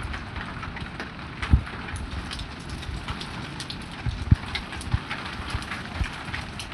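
Heavy rain pouring steadily, with scattered sharp hits of drops striking surfaces and a few louder thumps.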